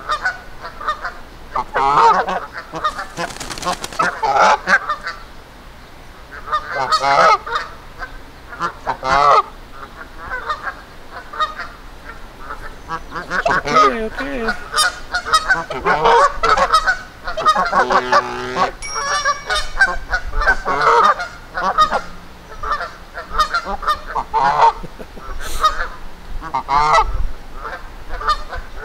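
Canada geese honking over and over in agitation, call after call.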